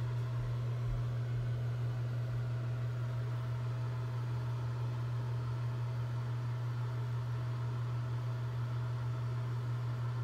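A steady low machine hum with a faint hiss over it, unchanging throughout.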